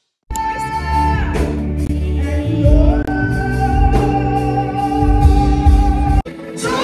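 Singing over a band with strong bass, a carol performed in a large church hall. It starts after a brief moment of silence and breaks off abruptly about a second before the end.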